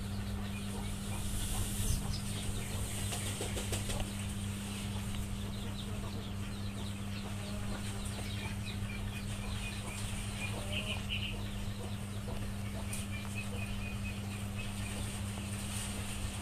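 Background ambience: a steady low hum with faint, short, high bird chirps scattered through it.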